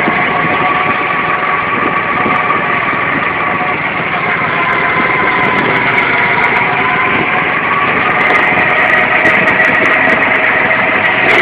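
Go-kart engine running steadily while the kart is driven around the track, its pitch wavering slightly with speed.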